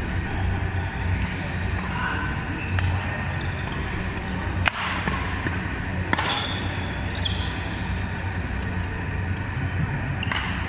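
Badminton rackets striking a shuttlecock during a rally: three sharp hits, the last two loudest and about a second and a half apart, with short squeaks of shoes on the court floor. A steady low hum fills the large, echoing hall.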